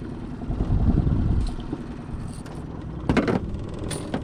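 A caught bass being handled and landed in an aluminium jon boat: knocks and a rattle of tackle over a steady low rumble, with a sharp clattering knock about three seconds in.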